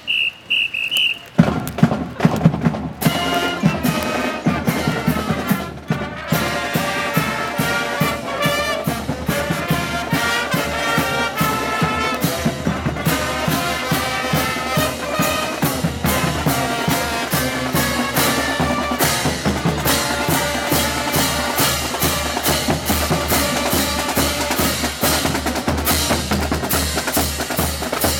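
High school marching band playing: a drumline of snare and bass drums keeping a steady beat under brass. A few short high tones sound near the start, before the band comes in fully about three seconds in.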